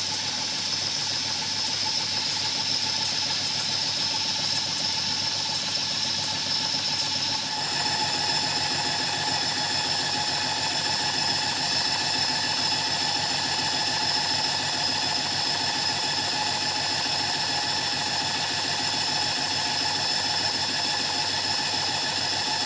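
Stuart No. 9 single-cylinder model steam engine running steadily under steam, warmed up with its drain cocks shut: a steady hiss and mechanical running noise.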